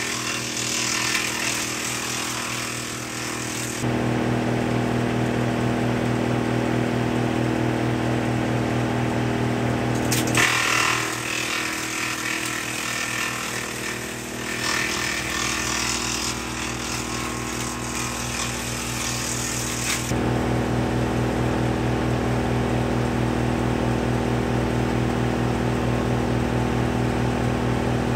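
Woodmaxx MX-8800 PTO wood chipper with feeder, driven by a John Deere 2032R's 32 hp diesel, shredding leafy branches. There is a loud hissing, shredding noise for the first few seconds and again from about a third of the way in to about two-thirds. Between those stretches only the steady drone of the tractor engine and spinning chipper is heard.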